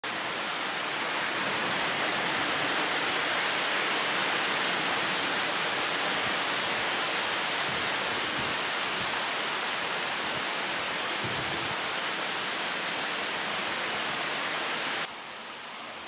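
Steady hiss of wind blowing over a riverbank, with no distinct events; it drops sharply to a quieter hiss near the end.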